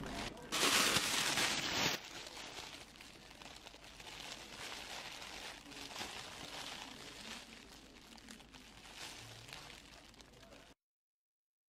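Plastic bakery bag crinkling and rustling as pastries are handled in it, loudest for about a second and a half near the start, then softer; the sound cuts off suddenly near the end.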